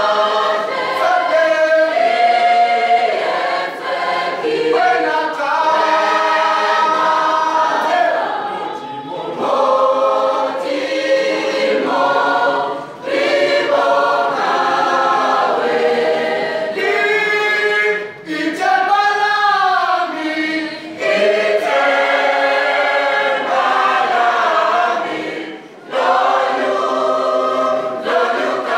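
Mixed school choir of girls and boys singing a cappella in several parts, in long phrases broken by short breaths about three times.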